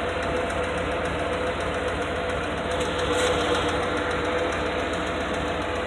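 Ford F-150 pickup's engine idling with a fast, even ticking, which the owner takes for a lifter tick along with low oil pressure. The engine is misfiring: three of its spark plug boots have come off.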